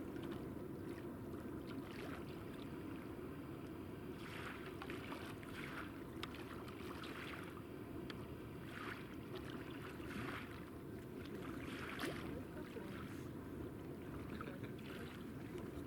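Distant train rolling across a steel rail bridge: a steady low rumble with irregular metallic clatter and squeals from the wheels every second or two.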